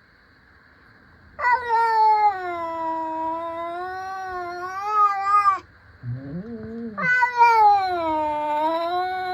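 Domestic cats yowling: two long, drawn-out, wavering yowls of about four seconds each, with a shorter, lower call between them.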